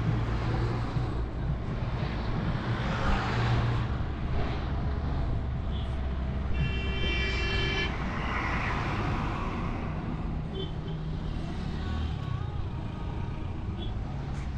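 Minibus engine running and road noise on a drive through traffic, with a horn sounding for about a second and a half midway.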